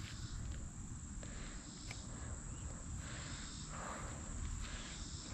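Faint outdoor ambience: insects chirring steadily under a low rumble, with a few faint clicks.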